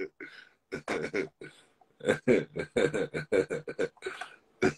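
A man laughing hard, in a run of short breathy bursts of laughter.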